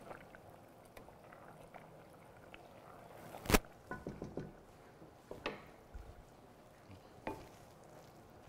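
Cooking utensils knocking and clinking: a spoon stirring in a pot on the stove, with one sharp knock about three and a half seconds in and a few lighter taps after it.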